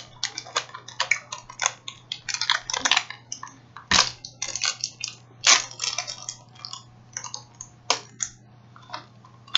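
Crinkling and tearing of a Kit Kat's plastic wrapper as it is opened, an irregular run of crackles with a few sharper snaps about four and five and a half seconds in.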